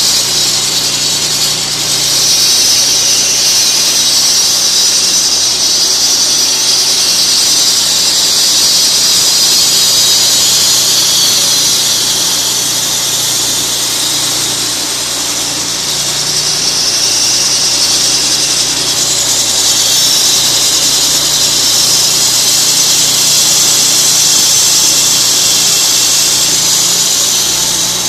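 Walk-behind concrete floor saw wet-cutting a concrete slab: a loud, steady high screech from the blade grinding through the concrete over the saw motor's low drone. The screech dips slightly in pitch a couple of times and recovers.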